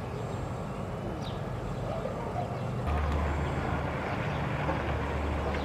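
Low, steady engine drone that gets stronger about three seconds in, over general city background noise, with a few short bird chirps.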